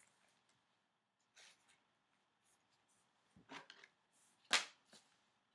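Quiet handling noises of a trading card and its plastic holder on a tabletop: a few soft rustles and taps, the loudest a brief sharp one about four and a half seconds in.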